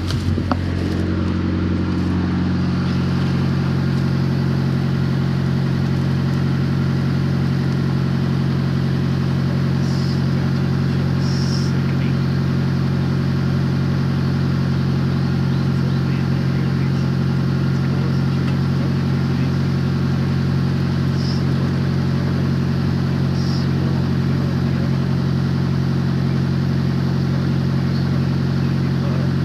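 A parked Sysco delivery truck idling: a steady diesel hum at a constant pitch, settling slightly about two seconds in.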